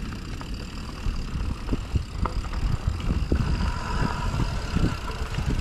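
Mountain bike rolling down a dirt trail: a steady low rumble with scattered knocks and rattles as the bike goes over bumps.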